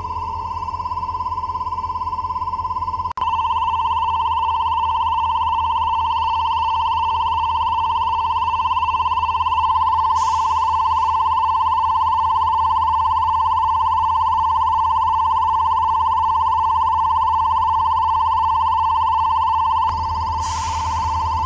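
Railway level-crossing warning signal ringing continuously, one loud steady electronic tone with a fast buzz, sounding while the crossing is closed for a train. It cuts out for an instant about three seconds in and comes back louder.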